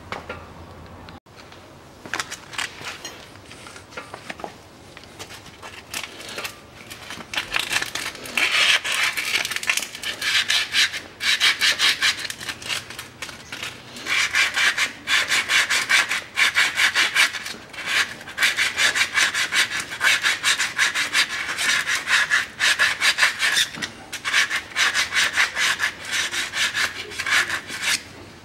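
Sandpaper rubbed by hand in quick back-and-forth strokes over the stub shaft of an ATV's front drive-axle CV joint, sanding off rust scale so the new hub bearing will slide on. The scraping starts faintly, grows louder about eight seconds in, and breaks off briefly about halfway through.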